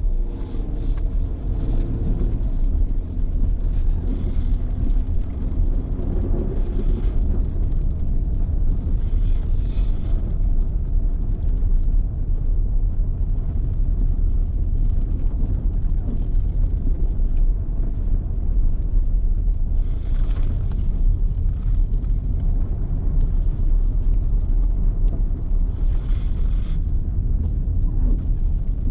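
A car driving along with a steady low road and engine rumble. There is a short rise and fall in engine pitch at the start. Several brief hissing swells, such as passing traffic or spray, come and go through it.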